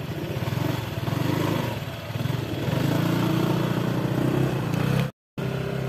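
Honda PCX scooter's single-cylinder four-stroke engine running as it pulls away over grass, its pitch rising and falling with the throttle. There is a short dropout near the end.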